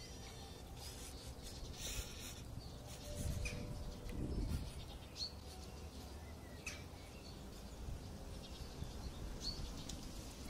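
Outdoor ambience: a steady low rumble that swells a few seconds in, with a few short, high bird chirps scattered through it.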